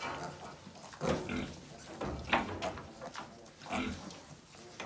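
Pigs grunting: a handful of short, separate grunts, the loudest a little past halfway.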